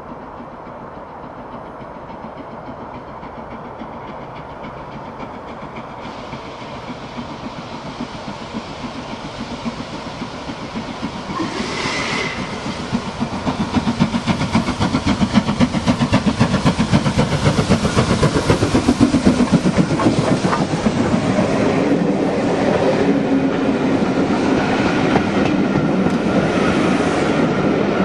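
Stanier Black Five steam locomotive with its train approaching, growing steadily louder over the first half, then running past close by with a loud, rhythmic clatter of wheels over the rail joints.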